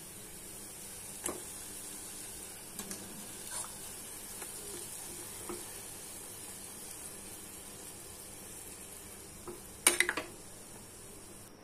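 Gulab jamun frying in hot oil in a kadhai, a steady sizzling hiss. A steel skimmer and spoon clink against the pan a few times, loudest in a quick cluster about ten seconds in.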